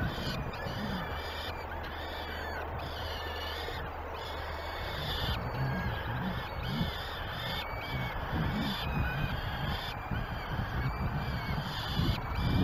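Peregrine falcon chicks begging as an adult feeds them: a run of short, high, arching cries, about one a second.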